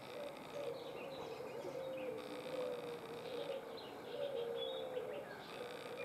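Sooty-headed bulbul giving scattered faint high chirps over a louder low, wavering hum that repeats throughout.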